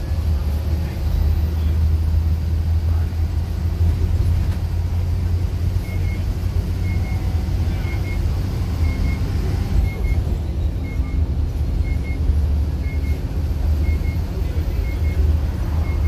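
Iveco bus's diesel engine and road noise heard from inside the cab while driving: a steady low drone. From about six seconds in, a short high double beep repeats about once a second.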